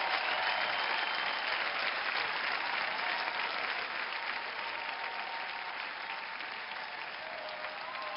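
Studio audience applauding steadily, easing off slowly over several seconds.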